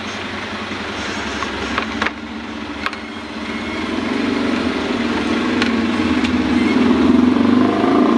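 A low, steady engine-like rumble that grows louder about halfway through, with a few faint clicks.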